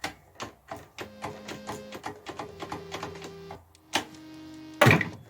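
Sharp clicks, then from about a second in background music: held notes that change pitch every half second or so over a steady ticking beat, with one loud hit near the end.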